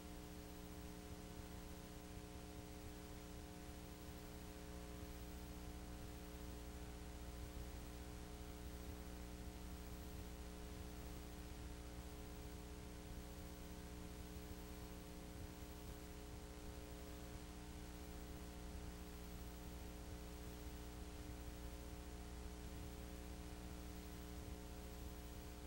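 Steady electrical hum with even hiss, a faint drone of several fixed tones that does not change.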